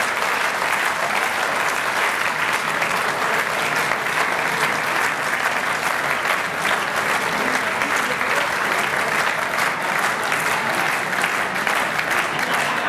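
A large audience applauding, dense clapping at a steady level throughout.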